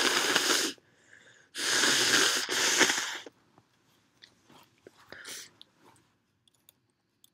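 A woman breathing heavily during a sneeze build-up from an itchy, tickling nose: two long, loud rushes of breath, the second lasting about a second and a half, with no sneeze. Faint sniffles and small mouth clicks follow.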